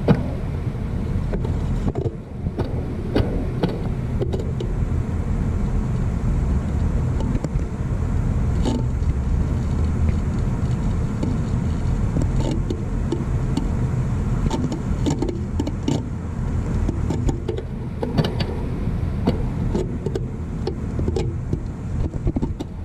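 Irregular crackles and snaps from inside a grounded Trane 3D scroll compressor, which the technician takes for the motor winding sparking to ground on the one leg that stays live with the contactor open. A steady low rumble runs underneath.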